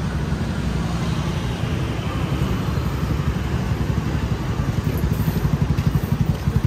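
Street traffic with a motor vehicle engine running close by. Its fast low pulsing grows louder toward the end.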